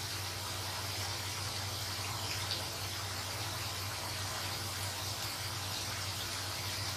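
Doughnuts deep-frying in hot oil: a steady, even sizzle over a low, constant hum.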